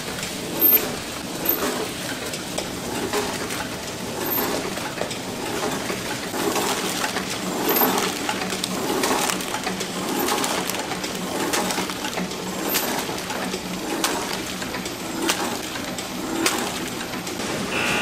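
Kitchen work sounds: scattered clicks and knocks of handling and clatter over a steady low hum.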